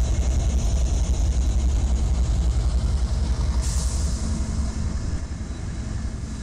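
CSX diesel locomotives passing close by, their engines giving a steady low rumble that eases off near the end. A sudden hiss cuts in about three and a half seconds in.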